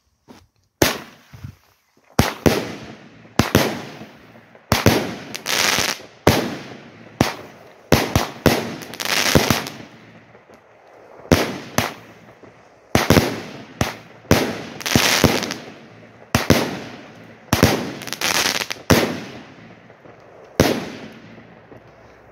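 A 16-shot, 20 mm firework cake firing in sequence: sharp launch reports and aerial bursts about once a second, each trailing a short hiss, for about twenty seconds. The last burst comes a little before the end.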